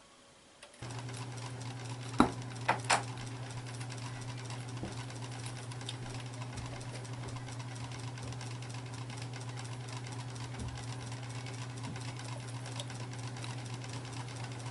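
A small motor runs with a steady hum, starting suddenly about a second in. A few sharp clicks or knocks come about two to three seconds in.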